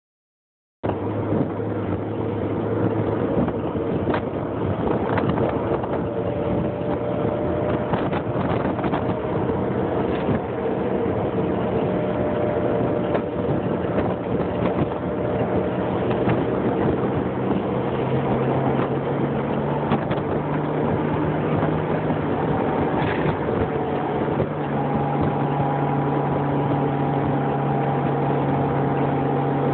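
Motorcycle engine running at road speed under heavy wind rush, its steady hum stepping up in pitch twice in the second half of the ride.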